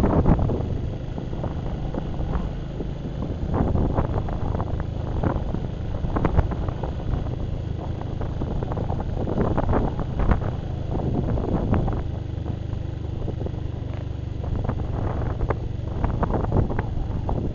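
Honda Magna motorcycle's V4 engine running steadily on the move, with wind buffeting the microphone in repeated gusts.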